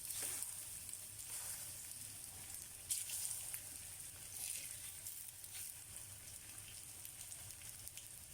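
Sliced nendran banana (ripe plantain) sizzling as it roasts in ghee in a hot pan: a soft, steady frying crackle with a few louder pops.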